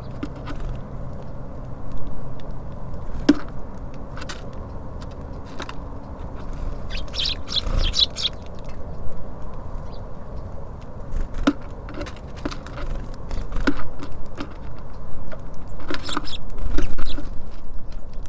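Small birds feeding at a bird feeder: scattered sharp pecks and taps on the feeder and a few brief high bird calls, over a steady low hum of traffic.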